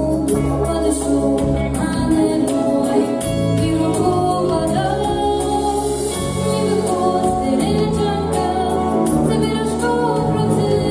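A female solo voice sings a song into a microphone over instrumental accompaniment with a steady beat.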